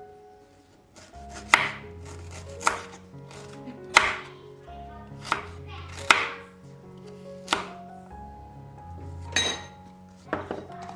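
A knife chopping on a cutting board, about nine separate strokes at an uneven pace of roughly one a second, over soft background music.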